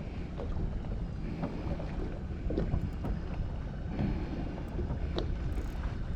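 Steady low rumble aboard a fishing boat at sea, with wind buffeting the microphone and a few faint clicks.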